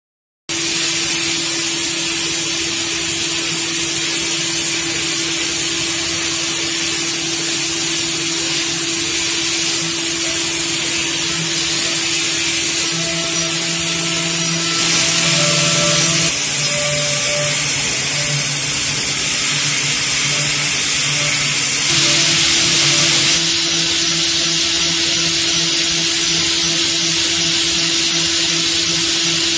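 GT-86V vertical machining center rough-milling a metal block with a cycloidal (trochoidal) toolpath, its end mill spinning at 8000 rpm and feeding at 4900 mm/min. The sound is a steady spindle whine with a hissing cutting noise, which starts suddenly about half a second in. The cut gets louder and brighter twice, each time for about a second and a half, around the middle and again a little past two-thirds through.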